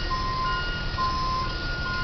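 Box truck's reversing alarm sounding as it backs up. It is an electronic beep that alternates between a lower and a higher pitch, roughly half a second each, over a low engine and traffic rumble.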